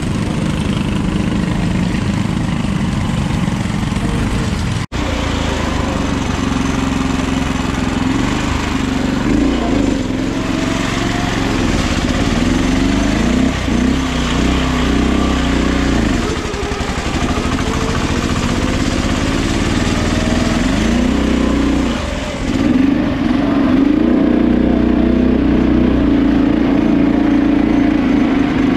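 Small off-road lawn tractor's engine running as it is driven, its pitch rising and falling again and again with the throttle, heard from the driver's seat.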